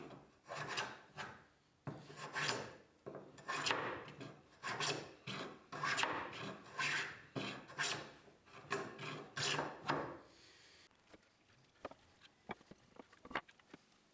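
Metal smoothing plane taking shavings off the tapered edge of a hardwood piece in repeated short strokes, about two a second. After about ten seconds the planing stops, leaving only faint scattered knocks.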